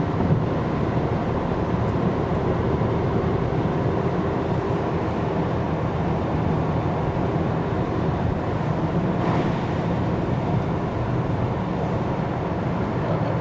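Steady hum of a car heard from inside the cabin, a low even drone with no distinct events.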